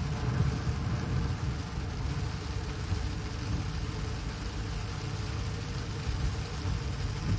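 Inside a moving car on a rain-soaked road: a steady low rumble of engine and tyres on wet pavement, with the hiss of rain and road water.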